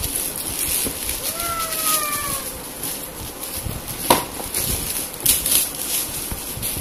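Gift wrap and gift bags rustling and crinkling as presents are unwrapped, with a short high cry that falls in pitch about a second and a half in.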